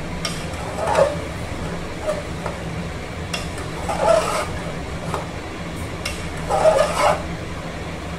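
Metal spatula stirring and scraping browned liver pieces in an aluminium pressure cooker. Three louder scrapes come about a second in, near the middle and near the end, over a steady low hum.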